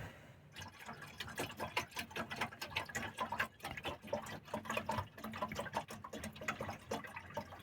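Water in a camping pot being heated for tea, crackling and ticking in quick, irregular clicks over a faint steady hum.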